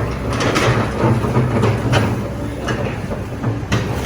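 Diesel engine of a heavy rock-crushing machine with big steel teeth running steadily, with four sharp cracks and clatters as rubble is broken and shifted.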